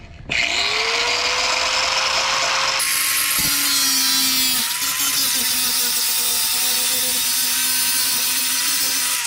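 A handheld power tool starts up with a rising whine that settles to a steady pitch. About three seconds in it bears into the work with a loud, harsh, steady grinding that continues to the end.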